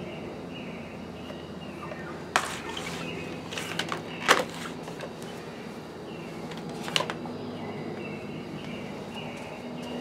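A few sharp knocks and clicks, the loudest about four seconds in, over a steady low hum with faint high chirps.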